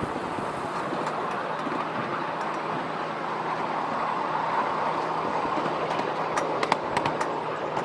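Ride-on miniature railway train running along its track, heard from an open passenger carriage: a steady rumble of wheels and motor, with a few sharp clicks near the end.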